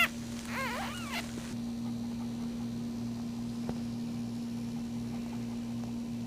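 Newborn puppy crying: three short high squeals in the first second or so, the loudest first and the next two rising then falling in pitch. After that only a steady low hum.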